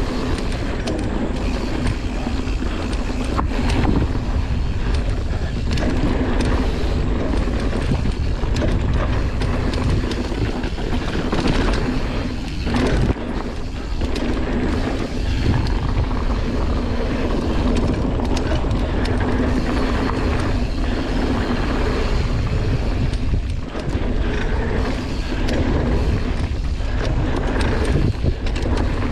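Mountain bike ridden fast downhill on a dirt trail: wind rushing over the camera microphone and the tyres running over packed dirt, with frequent small knocks and rattles from bumps.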